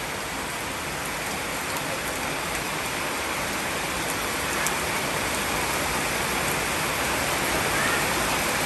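Heavy rain pouring steadily onto banana plants and grass, a dense even hiss that grows slightly louder toward the end, with one small sharp tick about halfway.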